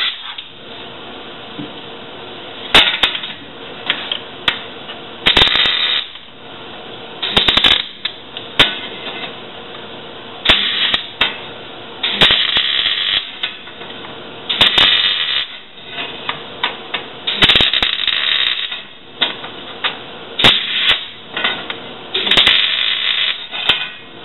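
Electric arc welder spot-welding sheet metal onto a van's rear beam: a series of short crackling bursts from the arc, each under about a second, with brief pauses between them.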